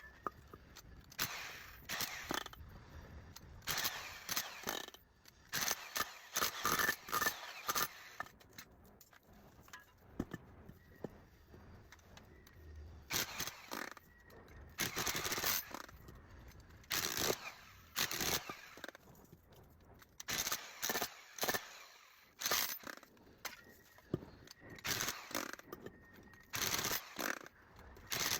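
Irregular scraping and cutting strokes on metal, each about half a second to a second long with short pauses between them, as an electric motor is dismantled with hand tools to strip out its copper.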